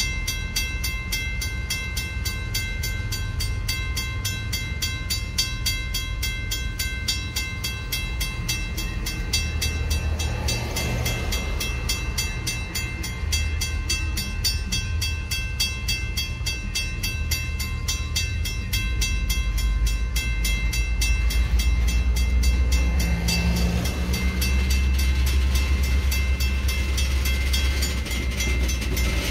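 Freight train of tank cars rolling slowly across a road crossing: a continuous low rumble that grows louder in the second half, with brief wheel clatter twice, over a fast, steady ringing.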